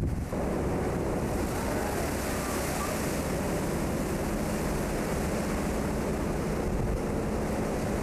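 Sea waves breaking and rushing along the hull of a cargo ship in rough water, with wind buffeting the microphone: a steady, loud roar of water and wind.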